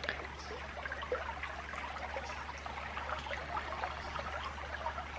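Shallow creek trickling steadily over gravel, with light scattered clicks.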